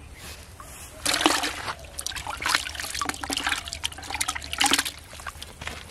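Water splashing and sloshing in a plastic bucket as a live carp is put into it by hand. It comes as a run of irregular splashes starting about a second in and dying down near the end.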